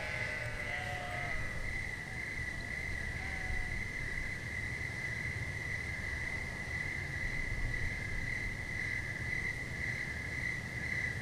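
Steady chirring of crickets or similar insects, with a low background rumble. There are a few short animal calls in the first second or two.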